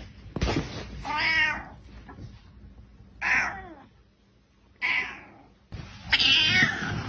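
Domestic cat meowing: four separate meows about a second and a half apart, the last the loudest.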